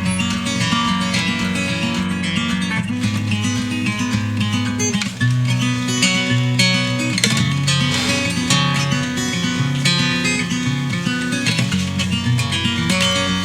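Acoustic guitar strumming steady chords: the instrumental introduction of a folk song, before the vocals come in.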